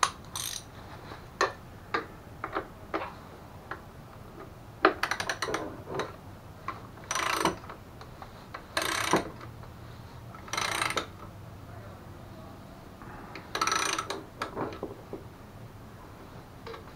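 Ratchet wrench tightening a bolt on a mobility scooter's front bumper: about half a dozen short ratcheting strokes of rapid clicks, with single lighter clicks and knocks between them.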